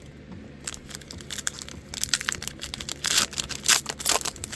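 Foil wrapper of a Pokémon trading card booster pack being crinkled and torn open, in irregular crackling bursts that grow louder about two seconds in.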